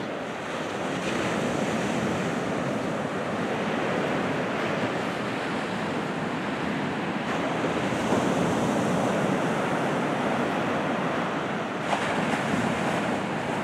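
Sea surf: low waves breaking and washing up a sandy beach, a steady rush that swells a little as each wave breaks every few seconds.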